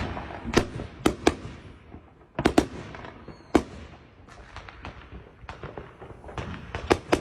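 Firecrackers going off: several sharp bangs and pops at irregular intervals, each with a short echoing tail.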